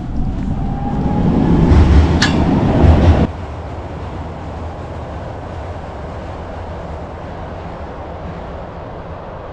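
Wind buffeting the microphone in a loud low rumble that cuts off about three seconds in. Then the steady rumble of a train crossing a steel truss railway bridge.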